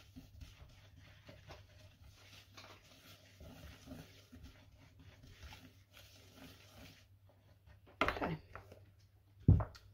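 Wire whisk stirring a dry powder mix of baking soda, citric acid and cornstarch in a plastic bowl: a faint, steady scratchy rustle with light ticks of the wires. Near the end come a louder sweeping knock and then a heavy low thump.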